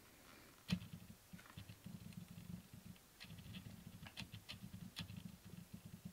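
Small plastic clicks and taps from a prize figure's foot peg being pressed against its clear plastic base, with a low rustle of handling. The peg won't seat in the base's socket.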